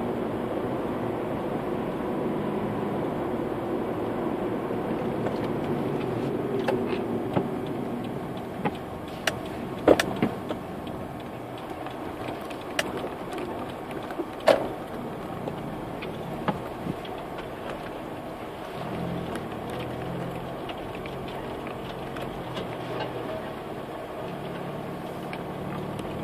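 Car driving, heard from inside the cabin: steady engine and road noise, with a scattering of sharp clicks and knocks through the middle.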